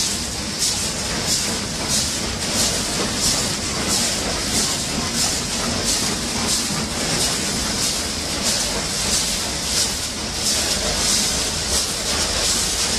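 Snack packaging line running: horizontal motion conveyor, multihead weigher and vertical packaging machine together make a steady mechanical noise. A regular hiss comes about three times every two seconds as the machine cycles.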